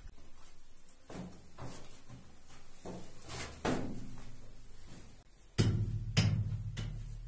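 Hammer striking the rock wall of a cave: loud sharp knocks about half a second apart begin near the end, each with a low boom that hangs in the enclosed space. Before them come scattered lighter knocks and scrapes from digging and footsteps.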